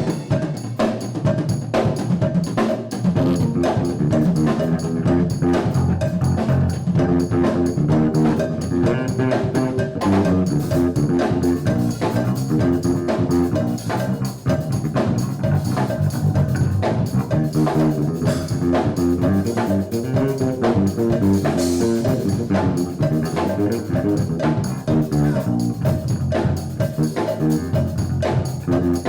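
Instrumental music with drum kit and brass, in a jazz style, played by a school ensemble.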